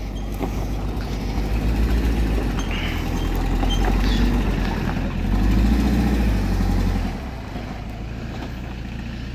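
Engine of a small tipper truck loaded with soil, driving slowly past on a dirt track. The engine rumble is loudest between about five and seven seconds in, then drops to a lower, steadier running sound near the end.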